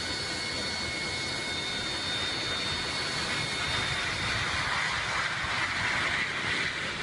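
Jet airliner's engines on landing: a steady roar with high, steady whining tones, growing a little louder near the end as the plane touches down and skids along the runway.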